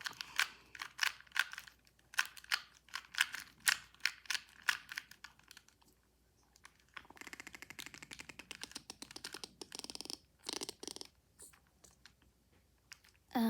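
Plastic 2x2 Rubik's cube being turned by hand, its layers clacking in a string of quick clicks, then a faster, rattling run of turns about seven seconds in.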